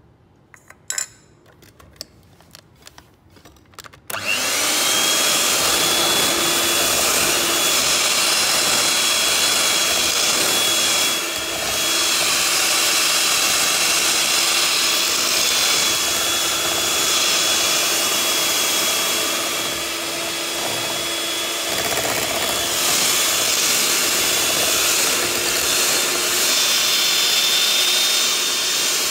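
A few light clicks, then about four seconds in an electric hand mixer with two wire beaters switches on and runs steadily with a high whine, beating a thick cream cheese mixture.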